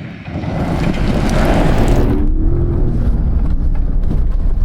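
Ford Raptor pickup on a dirt trail, driving through a small spring-fed stream: a rush of splashing water over the low rumble of the engine and tyres, which cuts off sharply about two seconds in. The engine and tyre rumble then carries on, louder.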